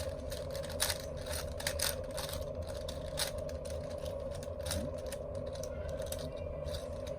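4x4 Rubik's cube being turned by hand: irregular quick plastic clicks and clacks as its layers are twisted, over a steady background hum.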